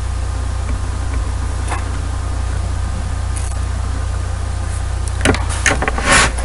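Steady electrical hum with hiss from the recording setup, with a few faint clicks and a couple of short sharper sounds near the end.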